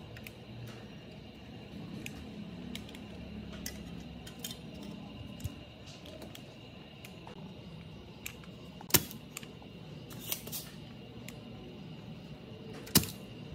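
Light ticks and taps of a soldering gun and tools working loose wires on an amplifier circuit board, with two sharp clicks about nine and thirteen seconds in.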